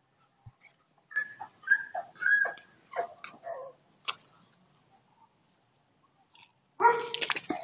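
Dalmatian puppy making a run of short, high yips and whines, then a louder bark burst near the end.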